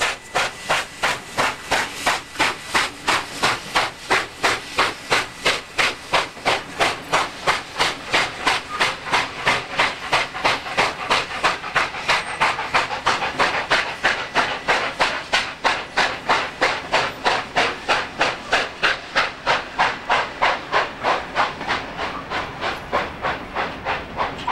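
Steam locomotive working a passenger train, its exhaust beating in a steady chuff about three times a second, with steam hiss. The beats grow fainter near the end as the locomotive draws away.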